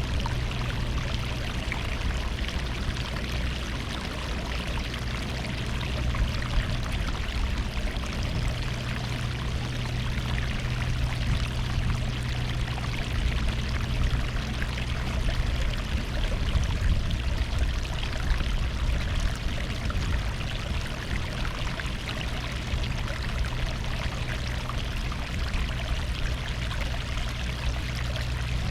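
Sea water rushing and washing continuously along a shore, with a steady low rumble underneath.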